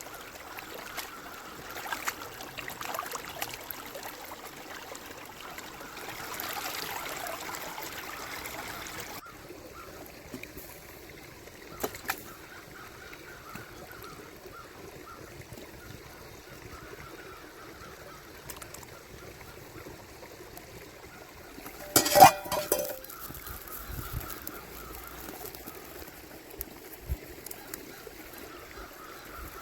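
Steady rush of a flowing river with a few light knocks. About two-thirds of the way through comes a short, loud pitched sound that pulses a few times over about a second.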